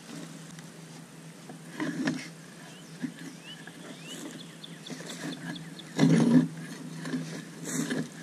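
Handling noise: a few dull thumps and scuffs as a metal stake and a wooden board are worked by hand at the ground, the loudest thump about six seconds in, over a faint steady low hum.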